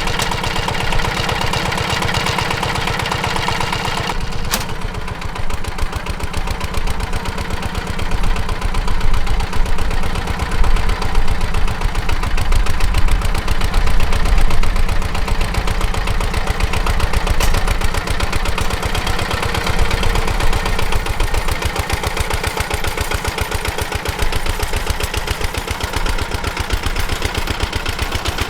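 Engine of a Zubr walk-behind tractor running steadily, driving its rotary tiller, with an even rapid firing beat. The sound shifts briefly about four seconds in and grows somewhat louder through the middle stretch.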